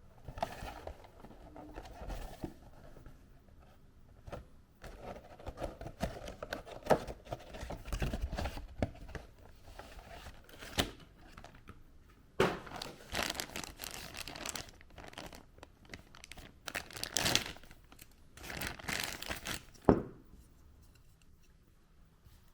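Kids'-meal toy packaging crinkling and being torn open by hand: irregular rustling with a few sharp crackles.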